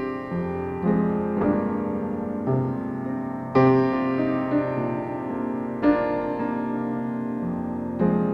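Upright acoustic piano played solo: slow chords struck every second or two, each ringing on and fading, the strongest about three and a half, six and eight seconds in.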